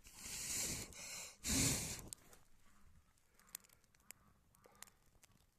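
A person blowing hard twice on a weakly burning fire of damp grass to get it going, each blow about a second long. A few faint crackles follow.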